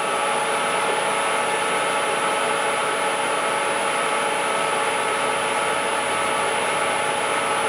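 Metal lathe running under power feed while its tool takes a 30-thousandths turning cut across the welded build-up on a 1018 steel shaft: a steady machine hum with several steady tones.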